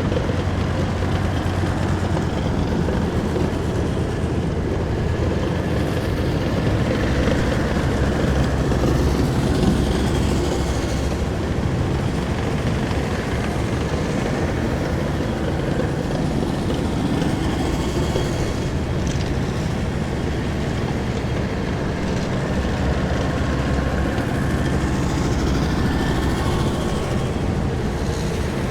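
A column of heavy military vehicles driving past, their engines giving a loud, steady rumble that swells slightly a few seconds in.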